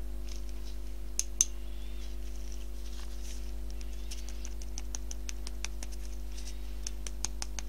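Light ticks and clicks of a thin metal tool dabbing glitter onto a candle's wax topping in a glass jar, with two sharper clicks about a second in and a quick run of small ticks in the second half, over a steady low hum.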